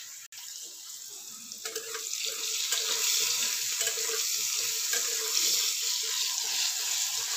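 Potato pieces sizzling in hot oil in a metal kadai, the sizzle louder from about two seconds in. Scattered clicks come from a metal spatula stirring the potatoes against the pan.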